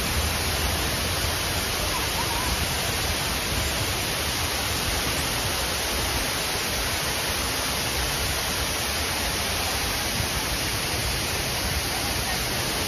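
Artificial waterfall: water falling about 45 feet down a rock face into a pool, a steady, even rush with no breaks.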